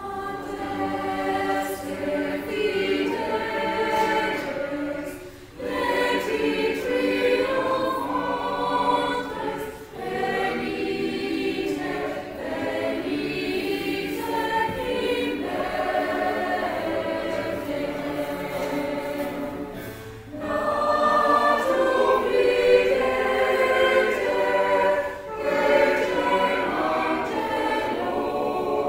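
Mixed choir of women's and men's voices singing in long phrases with brief pauses for breath, in a large stone church.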